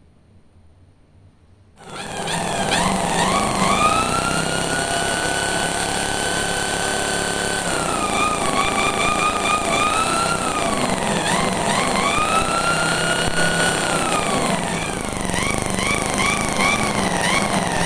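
An electric drill spins a motorcycle flywheel magneto on a test bench, driving the stator for a CDI bench test. The motor's whine starts about two seconds in, climbs in pitch and holds, then dips and climbs again a few times as the speed changes, and ends in a quick wavering up-and-down.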